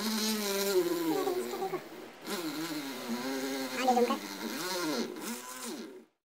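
Small 12 V DC motor of a homemade drill press whining as its bit is pressed down into a thin strip of soft wood, the pitch wavering up and down as the bit bites. It stops abruptly near the end.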